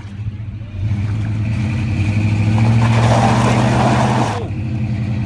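Vehicle engine revving and held under load during a tow-rope recovery of a minivan stuck in seawater on a boat ramp. It grows louder about a second in, and a loud rushing hiss rides over it from about a second and a half until it cuts off sharply past four seconds.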